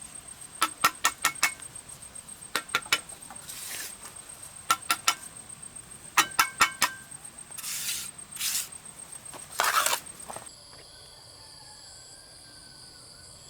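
A hard metal tool tapping in quick runs of three to five sharp, ringing clinks, with short scraping sounds in between. Near the end the tapping stops and a steady high insect drone takes over.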